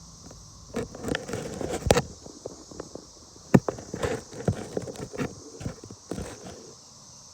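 Irregular knocks, taps and rustling close to the microphone, typical of hands and a phone being handled, with the sharpest knocks about two and three and a half seconds in. A steady high-pitched hiss runs underneath.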